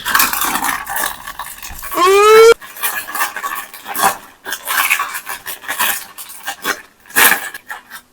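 Kinetic sand being cut and crumbled with a tool, a run of short crunching and scraping strokes. About two seconds in, a loud short rising tone.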